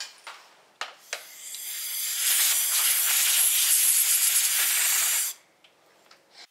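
A blow gun releasing a blast of compressed air, hissing steadily for about three seconds, then cutting off sharply; it builds up over about a second at the start. A few sharp clicks come just before it.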